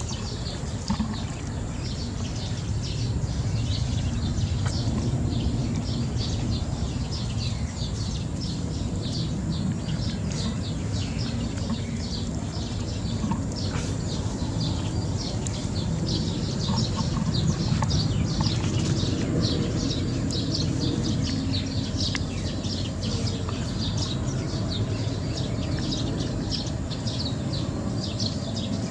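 Many small birds chirping and twittering continuously over a steady low rumble.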